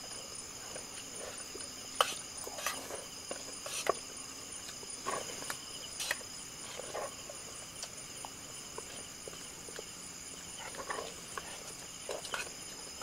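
Crickets and other night insects chirring steadily in high pitch, with spoons now and then clinking and scraping against metal bowls as people eat.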